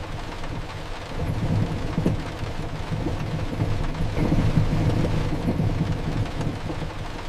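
Storm ambience: steady rain with a deep, rolling low rumble of thunder that swells and fades.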